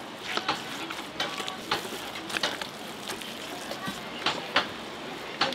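Irregular sharp clacks and knocks of kitchen utensils at work during handmade fish cake preparation, over a steady background hiss and faint voices.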